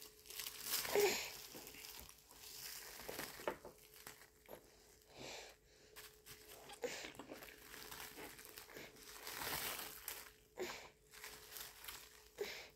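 Plastic wrap crinkling in irregular rustles as fingers pull pieces of fufu out of it.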